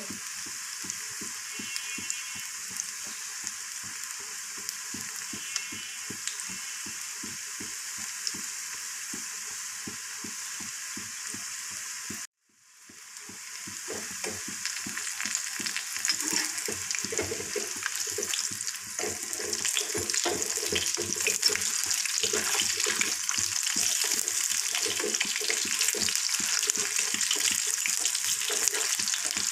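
Cauliflower pakoras deep-frying in hot oil in a kadai: a steady sizzle with dense crackling. About twelve seconds in the sound drops out for a moment, then comes back louder, with a spatula stirring the fritters in the pan.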